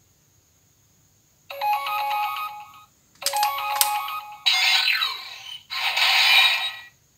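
Electronic sound effects from the Auldey DX Rescue Driver toy's speaker: two short bursts of a beeping, ringtone-like tune, then a falling sweep and a louder burst of effect sound near the end.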